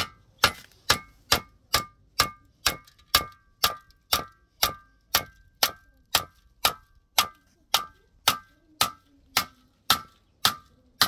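Steady, evenly paced hammering with a metallic ring, about two strikes a second.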